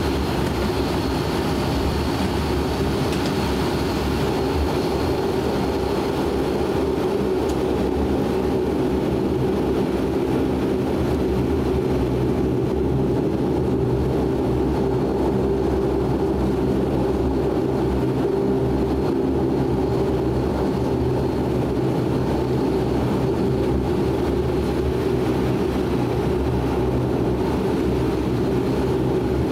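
De Havilland Canada Dash 8 Q400 taxiing, heard inside the cabin: its Pratt & Whitney Canada PW150A turboprop engines and propellers at low taxi power, a steady drone with several steady low tones. A faint high whine sits over it in the first few seconds.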